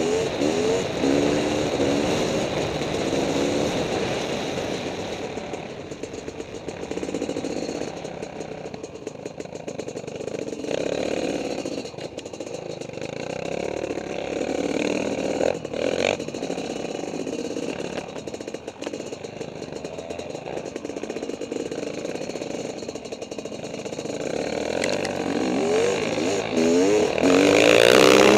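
Honda CR500's two-stroke single-cylinder engine revving hard at speed. Its pitch climbs and drops through shifts near the start, runs lower and steadier through the middle, then winds up loudly again near the end.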